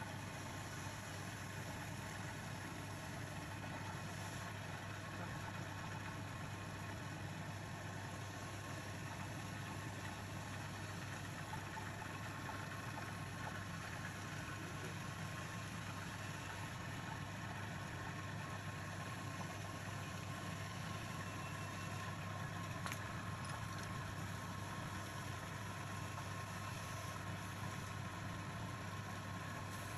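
Wood lathe running steadily with a constant low hum as a turned spindle spins, being sanded by hand against the spinning wood.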